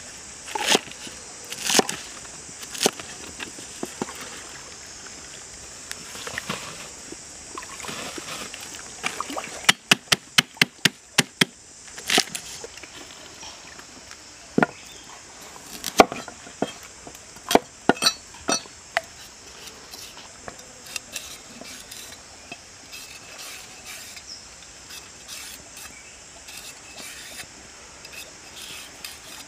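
Cleaver chopping vegetables on a wooden cutting board: scattered single chops, a quick run of about eight chops around ten seconds in, and lighter cuts near the end, over a steady high hiss.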